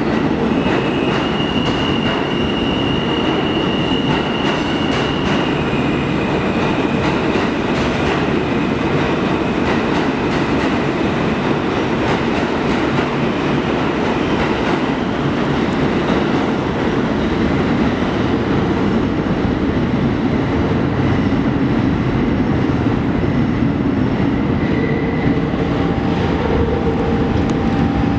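New York City Subway trains running through the tunnel: a loud, steady rumble of steel wheels on rail with scattered rail clicks. A high wheel squeal rings for the first several seconds, and fainter squeals come and go later.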